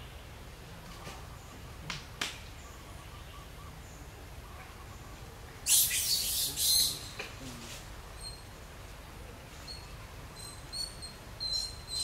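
Short, high-pitched animal chirps over a steady low outdoor rumble: a loud chittering burst about six seconds in, then a run of brief repeated chirps near the end, with a couple of sharp clicks about two seconds in.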